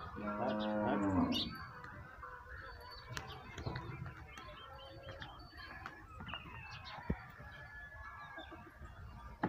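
A cow moos once, a single pitched call about a second and a half long. Quieter farmyard sounds follow, with chickens clucking.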